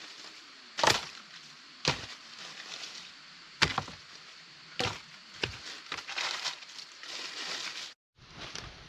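Wood being chopped with a blade: five sharp chopping strikes about a second apart, followed by lighter rustling and scraping. The sound cuts out briefly near the end.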